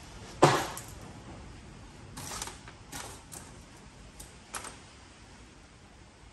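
Small pieces of scrap metal clinking as they are sorted by hand and dropped into bins: one louder clank about half a second in, then several lighter clinks over the next few seconds.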